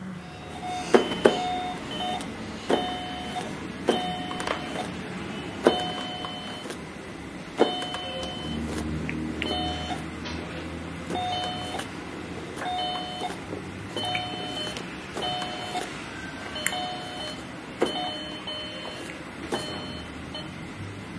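A repeated clicking sound effect, each click followed by a short beep at two pitches, about one a second at uneven spacing.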